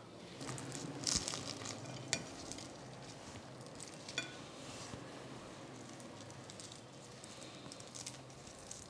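Crisp, flaky lacha paratha layers crackling and rustling as fingers pull and tear them apart, with a few sharper crackles about one, two and four seconds in and more near the end.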